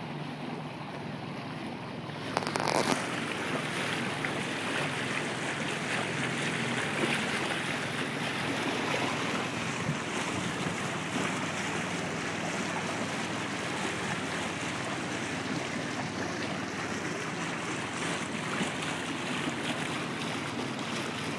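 Boat under way on a river: water rushing along the hull and wind on the microphone in a steady rush, with a faint steady low hum underneath. A louder gust about two and a half seconds in.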